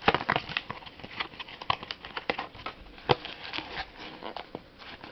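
A Pokémon booster box's packaging being handled and pushed open by hand: irregular clicks, taps and faint crinkles, a few sharper clicks standing out.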